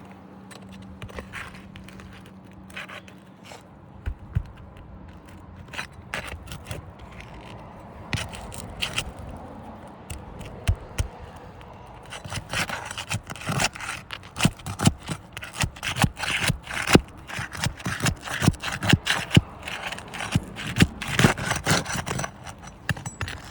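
Sealed asphalt shingles being pried apart with a flat hand tool: scraping and crackling as the tabs tear loose from their sealant strips. Sharp clicks and snaps come sparsely at first and grow much denser and louder about halfway through.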